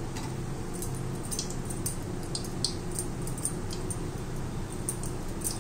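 Curry masala and potatoes frying in a pan on a gas stove, with faint crackles and light taps of a metal ladle over a steady low hum.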